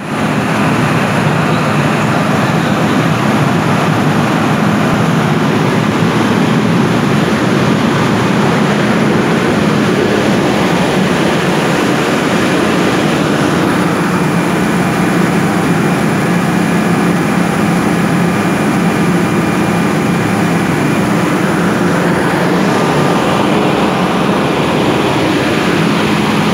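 Perkins diesel engine of a 300 kVA generator set running loud and steady, under load from a load bank during a load test.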